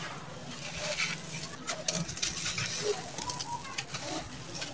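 Hands scooping and crumbling dry, gritty sand-cement mixed with small stones, the grit crunching and the grains pattering back onto the pile in irregular crackles that thicken around two seconds in and again near the end.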